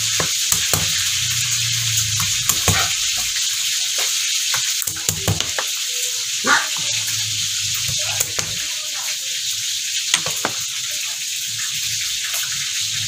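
A cleaver knocking on a cutting board as garlic cloves are crushed and cut: irregular single knocks, several strong ones between about two and ten seconds in, over a steady high hiss.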